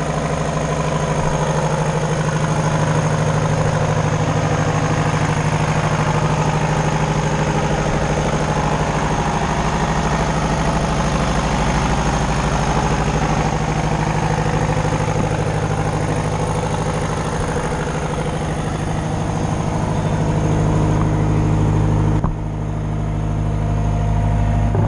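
Mayco trailer concrete pump's engine running steadily at idle. About 22 seconds in, the higher hiss drops away abruptly while the low engine note carries on.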